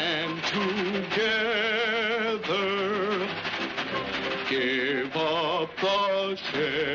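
Cartoon soundtrack music of long held notes with a strong, even vibrato, and a quick climb to higher notes about five seconds in.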